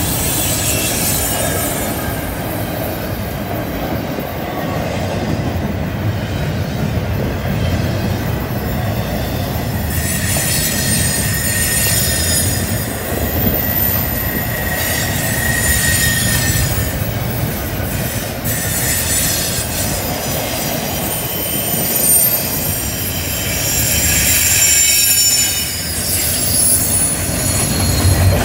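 Double-stack container well cars of a CN intermodal freight train rolling past with a steady wheel rumble. Shrill wheel flange squeal comes and goes as the cars take the curve.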